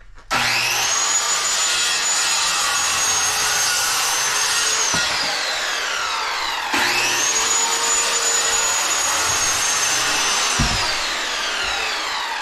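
Circular saw cutting lumber twice: each time the motor whines quickly up to speed, runs steadily through the cut for about four seconds, then winds down as the trigger is released.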